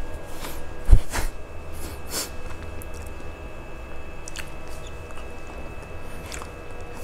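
A thump about a second in, then a few short breath sounds and soft rustles of paper as the book is handled, over a steady low electrical hum.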